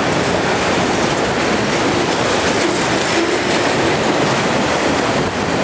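Empty auto-rack freight cars rolling past close by: a loud, steady rush and rattle of steel wheels on the rails.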